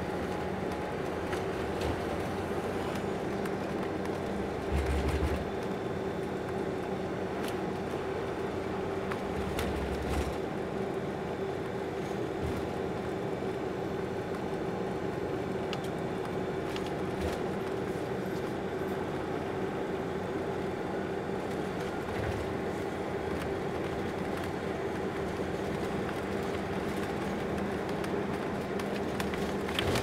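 Steady drone of a moving road vehicle heard from inside the cabin: road and engine noise with a constant two-note hum. There are brief low thumps about five and ten seconds in.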